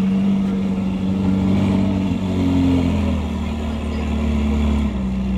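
Exotic sports car's engine running at low revs as the car creeps away, with a slight rise in revs about two seconds in that settles back down.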